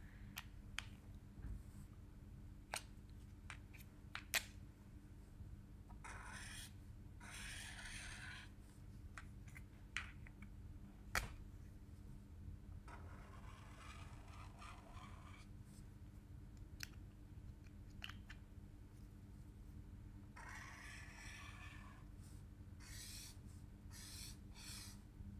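Marker nib rubbing across paper in several short stretches of faint scratchy strokes, with a few sharp clicks as markers and caps are handled and a low steady hum beneath.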